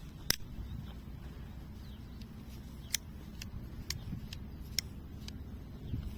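Small metal clicks and ticks of a multi-tool pocket knife being handled, about seven sharp ones spread unevenly over a low steady rumble.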